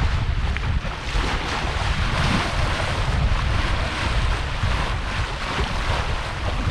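Wind buffeting the microphone over water rushing and splashing along the hull of a Hanse 385 sailing yacht under sail. It is a steady, even noise throughout.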